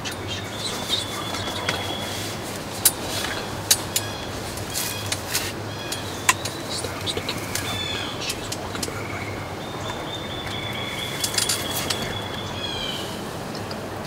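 Songbirds singing, with high, even trills lasting a few seconds each and scattered short chirps. Several sharp clicks stand out, and a steady low hum runs underneath.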